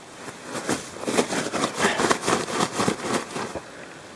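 Close-up rustling and crinkling of nylon fabric and gear being handled and shuffled, in irregular bursts that stop about three and a half seconds in.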